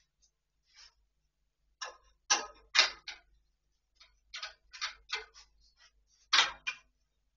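Snooker chalk being rubbed onto a cue tip: a dozen or so short rasping scrapes in quick runs of two or three a second, with three louder strokes.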